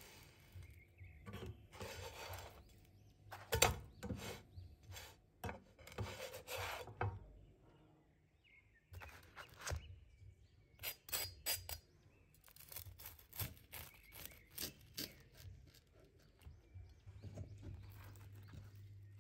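Kitchen handling sounds: a plastic spatula scraping and knocking in a nonstick frying pan as a toasted sandwich is lifted, then the toasted bread being sliced in half on a wooden cutting board, with a run of short crisp crunches and knocks.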